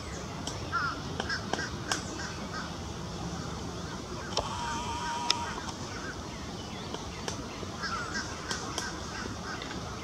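Outdoor ambience with a steady low background, faint chirps from small birds and scattered light ticks. About halfway through comes a single short, flat honk.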